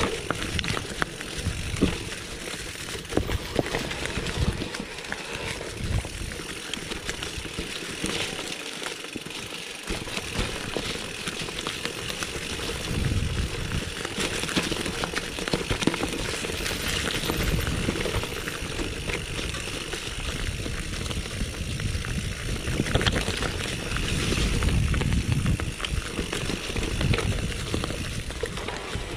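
Mountain bike rolling down a dirt forest trail: knobby tyres over dirt and leaves, the frame and parts rattling and knocking over bumps, over a steady rumble of wind on the handlebar camera's microphone.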